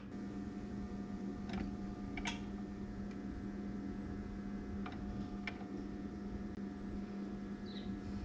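Steady low electrical hum from a bottom-pour electric lead pot setup, with a few faint light metal clicks as an aluminium jig mold is held under the pot's spout and its valve is worked to pour.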